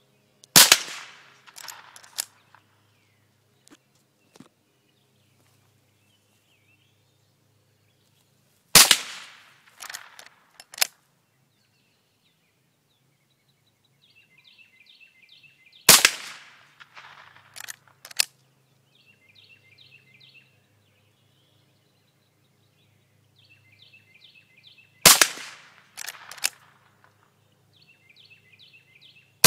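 Four rifle shots fired singly, about eight seconds apart, each followed by a fainter sharp crack about a second and a half later. A bird sings in short repeated phrases between the later shots.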